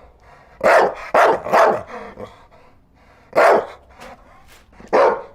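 A dog barking in single sharp barks: three in quick succession about a second in, then one more near the middle and another near the end.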